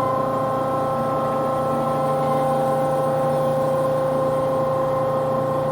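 Hyd-Mech H-20A horizontal band saw running steadily in automatic cycle, a constant hum with a steady whine from its motors as the hydraulic shuttle advances the workpiece.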